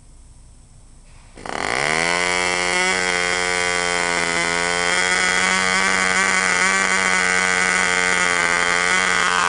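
Cox .049 Black Widow two-stroke model glow engine with a Dragonfly muffler, swinging a 6x3 propeller. It fires suddenly about a second and a half in, climbs quickly in pitch, then holds a steady high-pitched whine with a slight waver.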